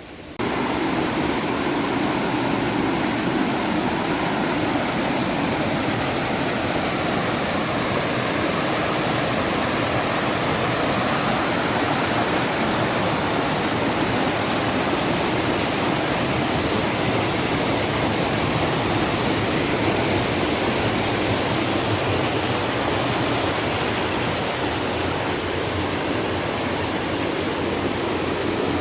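Rushing stream water: a steady, even rush that starts suddenly about half a second in.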